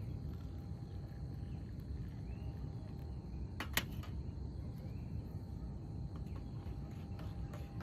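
Insects chirping over a low steady rumble of outdoor ambience, with one sharp click a little past the middle.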